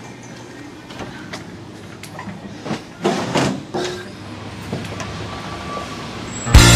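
Steady street traffic noise with a few knocks and clatters from glass entrance doors being pushed through, loudest about three seconds in. Loud music starts abruptly near the end.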